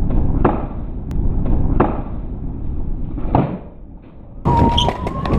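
Skateboard wheels rumbling over rough pavement, with three sharp clacks of the board hitting the ground.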